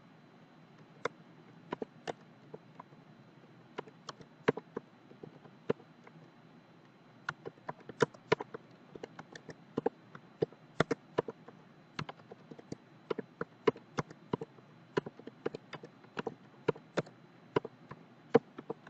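Keystrokes clicking on a computer keyboard as numbers are typed in, irregular and sparse at first, quicker and denser from about seven seconds in, over a faint steady hiss.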